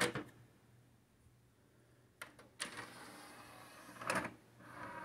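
Pioneer CLD-V850 LaserDisc player being loaded: the disc is set onto the tray with a click, then about two and a half seconds in the motorised tray draws in with a whir and shuts with a clunk. The mechanism starts whirring again near the end.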